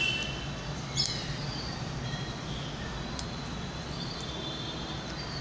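Steady background noise with faint, high, chirp-like tones coming and going, and a light click about a second in.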